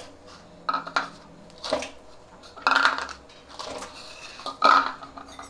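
Chocolate pieces and a metal spoon clattering in a stainless steel bowl: several separate clinks and scrapes, the loudest about three seconds in and again near the end.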